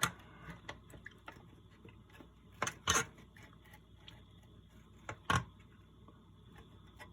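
A few sharp clicks and taps from handling an old analog multimeter's circuit board and parts: a close pair about three seconds in, another pair about five seconds in, with faint ticks between.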